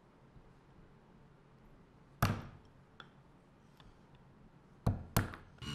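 Metal chisel tapping wooden glue blocks off a glued-up shelf: three sharp knocks, one about two seconds in and two in quick succession near the end.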